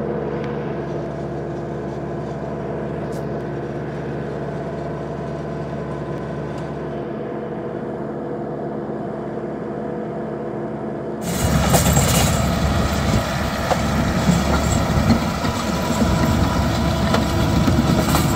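ISEKI TLE4550 tractor's 55 hp engine running steadily under load while its PTO drives a stone burier through the ground. About eleven seconds in, the sound turns abruptly louder and rougher as the stone burier's rotor is heard up close, churning the soil.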